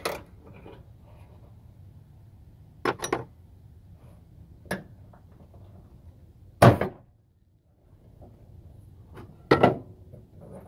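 About five short, sharp knocks and clatters a second or two apart, the loudest about two-thirds through, from hands working the hood's gas strut and its mounting clip.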